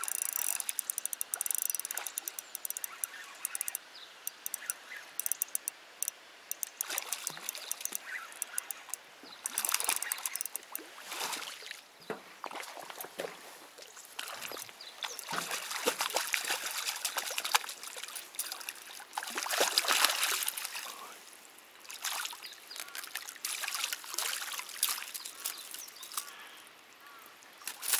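Water trickling and splashing, with a quick run of clicks in the first couple of seconds and louder splashes about a third of the way in, again past the middle and near two-thirds through.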